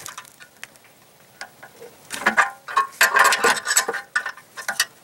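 Socket wrench ratcheting as the bolts of a stainless steel exhaust band clamp are tightened: light scattered ticks at first, then bursts of quick clicking from about two seconds in.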